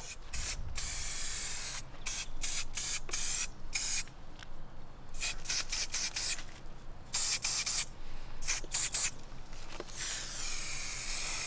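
Aerosol spray-paint can being sprayed in a rapid series of short spurts, then one longer, steady spray near the end.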